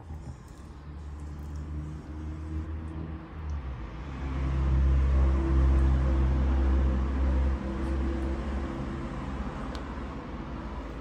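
A nearby engine running with a steady low hum, swelling louder about four seconds in and easing off again after a few seconds.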